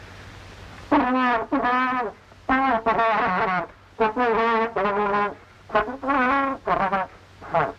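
A trombone played solo: a short tune of about ten held notes with a wavering, wobbly pitch, starting about a second in.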